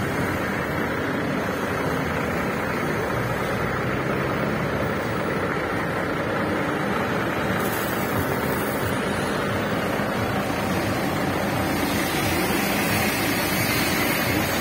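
Diesel engine of a Kenworth T800 semi truck running steadily with a low rumble.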